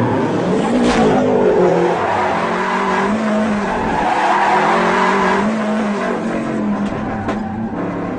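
Rally car drifting, its engine revs rising and falling several times over a steady hiss of skidding, squealing tyres.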